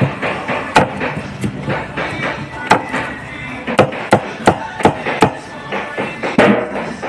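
Chayote being chopped with a blade: sharp chops in uneven runs, at times about three a second, over background music.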